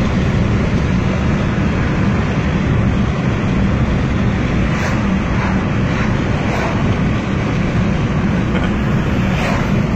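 Honda Fit driving at speed, heard from inside the cabin: a steady, loud mix of engine and road noise.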